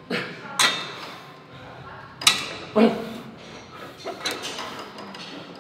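Gym equipment clanking: several sharp metal knocks spaced irregularly, the loudest two about half a second apart near the middle, over background voices and room noise.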